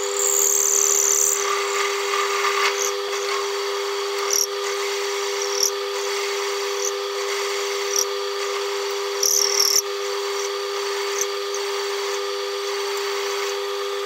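Metal-turning lathe running with a steady whine while a parting-off tool cuts into a turned metal blank. There are brief high-pitched screeches in the first second or so and again around nine and a half seconds in, and a few sharp ticks.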